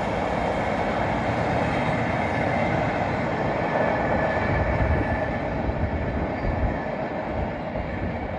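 Indian Railways express passenger train running past on the rails, a steady rumble of wheels and coaches that eases off toward the end.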